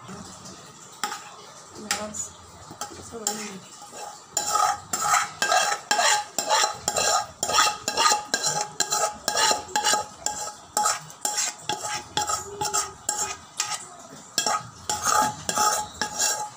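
Metal spoon scraping and knocking against a metal pot while spreading a layer of vegetable masala over rice for biryani. A few scattered clinks at first, then quick repeated scrapes, two or three a second, from about four seconds in.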